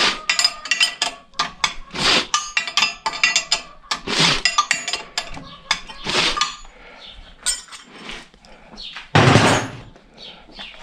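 Rapid metal clinking and clanking of hand tools on the steel fittings of a tractor-mounted log-splitting cone and its linkage as it is bolted on, then one heavier thud about nine seconds in.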